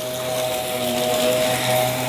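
Aspiron vacuum cleaner running with a steady motor whine over airflow hiss.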